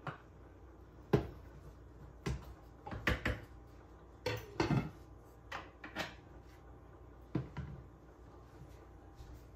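Kitchen clatter of cookware being handled: a wooden spoon knocking against a slow cooker's crock and a lunch container, and the slow cooker's glass lid being set back on. About ten separate knocks and clinks, the loudest about a second in.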